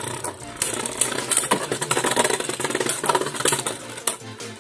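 Two Beyblade Burst spinning tops whirring and clashing against each other and the plastic stadium floor and walls, a dense, irregular rattle of rapid clicks.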